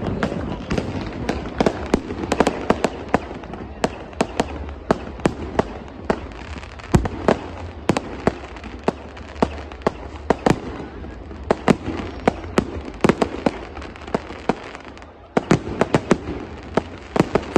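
Fireworks exploding in a rapid, irregular string of sharp bangs, several a second, over the steady din of a large crowd.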